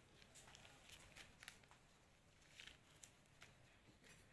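Near silence, with a scattering of faint, soft ticks and rustles as fingers handle deflated latex balloons.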